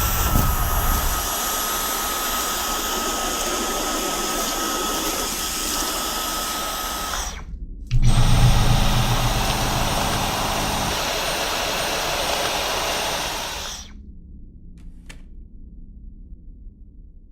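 Dyson V12 Slim Absolute cordless stick vacuum running with a steady rushing noise and a thin high motor whine. It cuts out for a moment about seven seconds in, starts again, and switches off about fourteen seconds in, leaving only a faint low hum.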